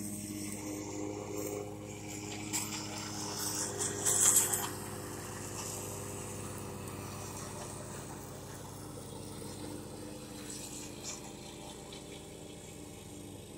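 Steady low mechanical hum, with a louder burst of hissy noise that builds and peaks about four seconds in before settling back.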